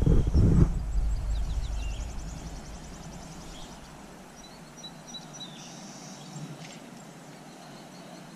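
Outdoor creekside ambience. Low wind buffeting on the microphone is strongest in the first second and dies away over the next few seconds. Faint high chirps and a short rapid trill go on over a quiet background.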